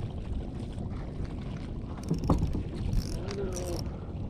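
Steady low rumble and wind noise on a small fishing boat at sea, with a brief louder knock about two seconds in and a short falling pitched sound shortly after.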